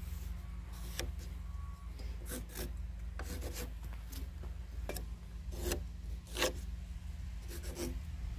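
Pencil scratching marking lines onto a rough-sawn pine/spruce timber beam, a series of short strokes, some in quick pairs, over a steady low rumble.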